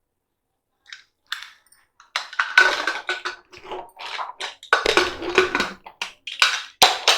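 Metal clattering and scraping as a pressure cooker is opened and its cooked mince and dal are checked: a run of sharp knocks with some ringing, starting about a second in.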